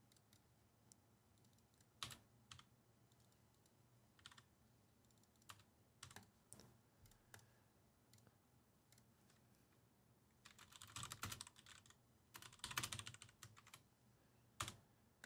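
Faint typing on a computer keyboard: scattered single keystrokes, then two quicker runs of typing about ten and twelve seconds in.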